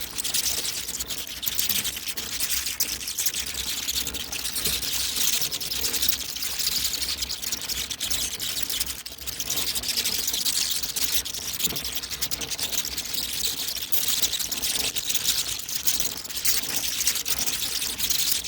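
A swarm of bats flying out of a cave: a dense, continuous flutter of many wings as a rapid, high crackle, holding steady throughout.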